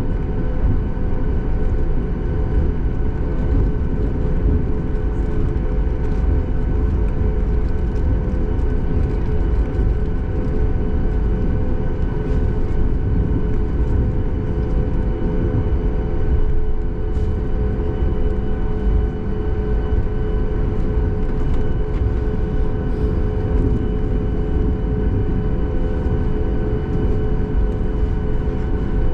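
Cabin noise of a Boeing 737 MAX 8 taxiing: a steady low rumble with the steady whine of its CFM LEAP-1B engines at low taxi power, holding level without spooling up.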